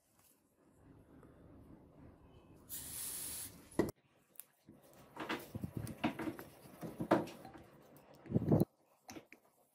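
A short hiss of aerosol spray onto the steel razor blade about three seconds in, ending with a click. After it come irregular rubbing and scuffing as a cloth wipes the blade, with a few knocks.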